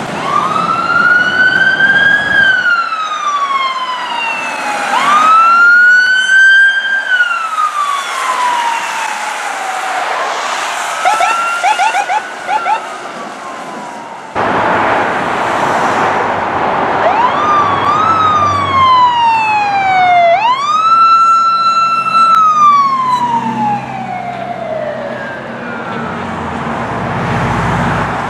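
Emergency vehicle sirens wailing in slow rising and falling sweeps, with a brief burst of rapid yelping about eleven seconds in. After an abrupt cut about halfway through, another siren wails, rising, holding and falling, with a heavy vehicle engine running beneath it near the end.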